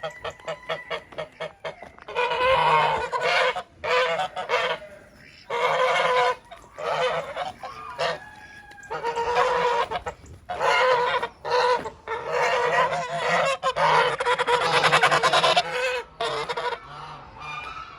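Geese honking in a flock: a run of quick short honks, then repeated loud bouts of overlapping honking a second or two long, with short pauses between, quieter near the end.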